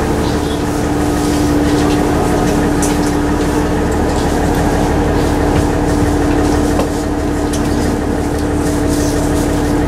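KiHa 110-series diesel railcar idling at a standstill, heard from inside the carriage: a steady engine hum with a constant drone, and a few faint light clicks.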